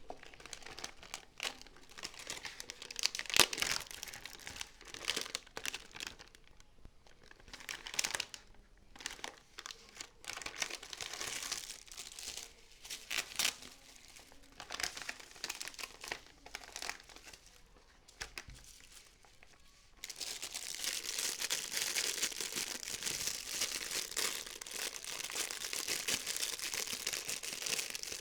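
Plastic packaging being handled and unwrapped, crinkling and rustling in irregular bursts. About two-thirds of the way through it turns into denser, steadier crinkling.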